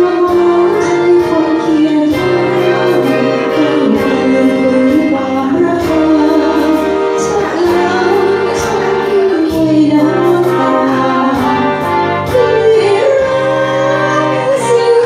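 A woman singing into a microphone, amplified through a loudspeaker, over a backing music track with a steady beat.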